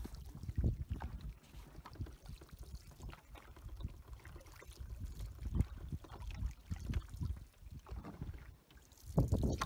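Canoe paddling: paddles stroking through calm water as the canoe moves along, with gusts of wind on the microphone.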